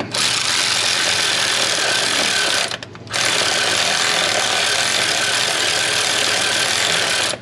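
Cordless power tool running a starter mounting bolt in on a Cummins 8.3L engine, in two long runs with a short pause about three seconds in.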